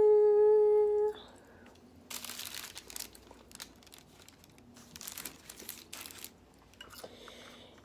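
A held sung note ends about a second in. Then come several short, crisp, crunchy bursts of close-miked chewing on a mouthful of salad.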